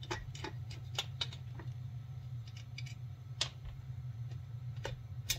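Irregular small metallic clicks and taps of a screwdriver and fasteners working on a chainsaw's housing during a muffler swap, about ten in all, over a steady low hum.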